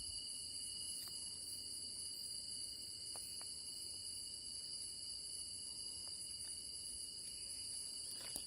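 Night insect chorus: steady, unbroken high-pitched trilling at several pitches at once, with a few faint ticks.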